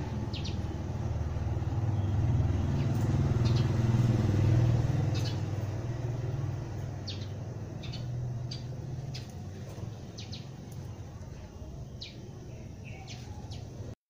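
A motor vehicle passes by: a low engine rumble swells to its loudest about four to five seconds in, then fades away. Short high chirps from small birds come every second or so throughout.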